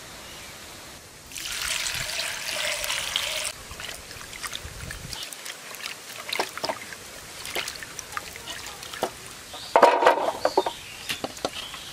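A rush of pouring water for about two seconds, then hands swishing and splashing cut drumstick (moringa) pieces in a bowl of water. A louder wet clatter about ten seconds in as the washed pieces land in a metal pan.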